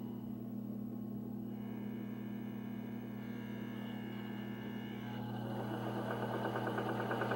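Sewing machine motor running slowly on an electronic foot-pedal speed controller, with a steady hum. About five seconds in it starts to speed up, its whir growing steadily louder.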